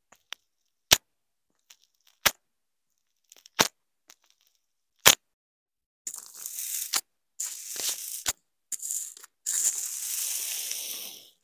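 Green floam pressed with a small tool, giving single sharp pops about every second and a half. From about six seconds in, a molded pink kinetic-sand castle is pushed into and crumbles with a crunching hiss in four stretches, the last and longest near the end.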